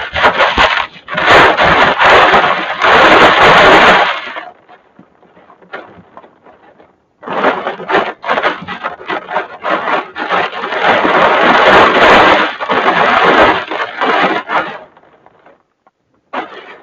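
Strong wind gusting in loud rushing surges a few seconds long, with quieter lulls between them and a crackly edge to the noise.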